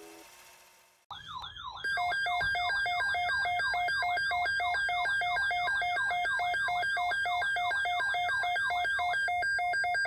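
Midland NOAA weather radio sounding its alert for a severe thunderstorm watch: a warbling siren-like tone, sweeping about three times a second, over a steady pulsing beep. The warble stops near the end and the beeping carries on.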